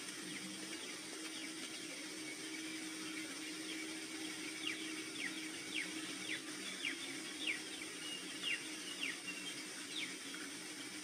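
A bird singing a run of short down-slurred whistles, about two a second, over a faint steady low drone. The song starts about halfway through and stops near the end.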